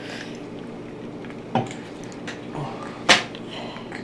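Spoon-feeding a baby: two brief sharp sounds from the spoon and the baby's mouth, a small one about a second and a half in and a louder one about three seconds in, over a low steady room hum.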